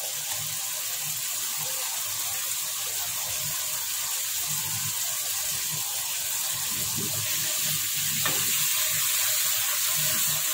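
Browned onions and garlic-ginger paste sizzling steadily in hot oil in a karahi, growing a little louder near the end as a wooden spatula stirs them.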